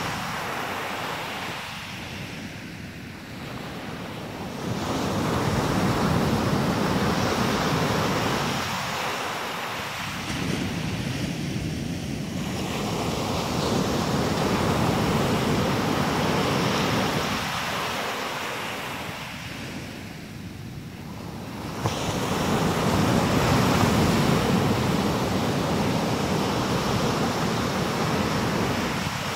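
Atlantic Ocean surf breaking on a sandy beach: a steady rush of water that swells and fades three times as each set of waves breaks and washes in, the last surge arriving abruptly about three quarters of the way through.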